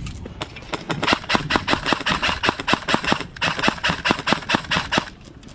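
Airsoft gun firing a rapid string of shots, about seven a second, in two runs with a short break around three seconds in.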